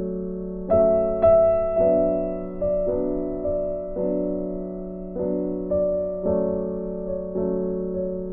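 Background music: a slow piano-like keyboard melody, with notes struck about every half second to a second, each ringing and fading.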